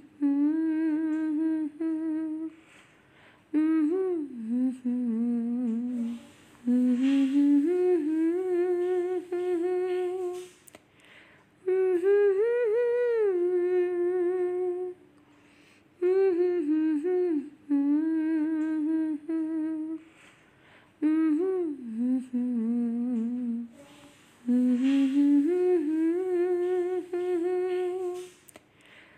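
Background music: a wordless hummed tune in held, slightly wavering notes, phrase after phrase with short breaths between, the same melody coming round again about every 17 seconds.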